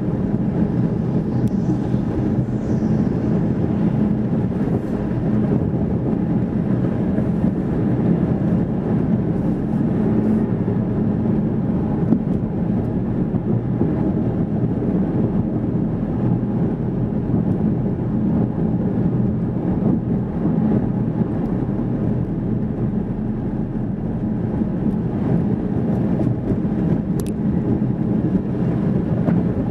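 Steady car interior noise while driving slowly: the engine running and the tyres rolling over a paver-stone street, heard from inside the cabin.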